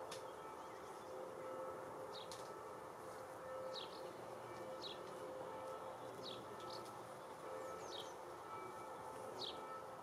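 Bumblebees buzzing steadily around lavender flowers. Over the buzzing come a small bird's short, high chirps, each falling in pitch, about one a second.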